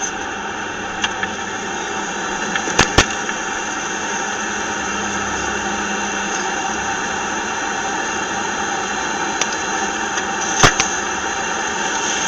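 Steady rush of a car being driven, heard from inside the cabin, with a constant whine of fixed tones running through it. A few sharp clicks come at about a second in, twice near three seconds, and once near the end.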